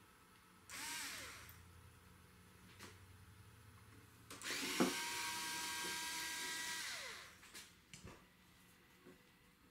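Cordless electric screwdriver backing out cabinet panel screws: a short whining run about a second in, then a longer run of about three seconds near the middle, each winding down in pitch as the motor stops. A few light clicks fall between the runs.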